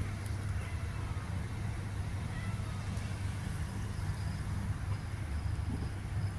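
Steady low rumble of a running vehicle engine, with no change in level.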